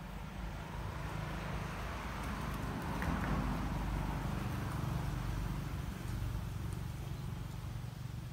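A passing vehicle over a steady low hum, its noise swelling to a peak about three seconds in and then fading.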